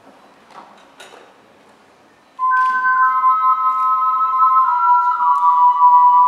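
Two ocarinas begin a duet about two and a half seconds in, with clear sustained notes: one holds a note while the other steps to new pitches. Before that there are only faint room noise and a couple of soft knocks.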